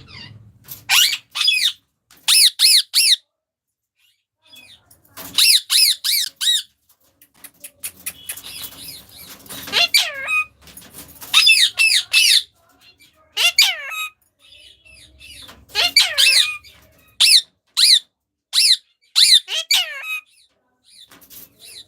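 Pet parrots squawking: short repeated calls in quick runs of several at a time, with brief pauses between runs.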